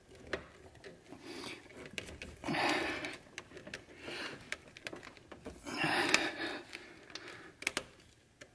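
Rubber blow-off valve hose being worked by hand onto its plastic fitting, with scattered small clicks and rubbing. Two heavy breaths come about two and a half and six seconds in.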